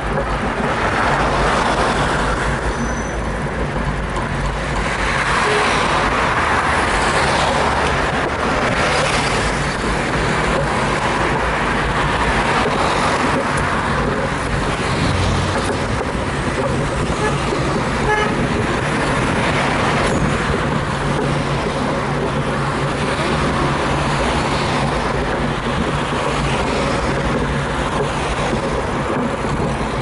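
Wind rushing over the microphone of a moving bicycle, mixed with street traffic noise, steady throughout.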